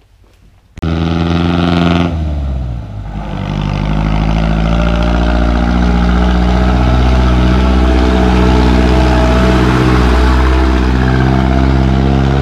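A motor vehicle's engine running loudly close by, starting abruptly with a deep steady drone. Its pitch drops about two seconds in, then it runs steadily again.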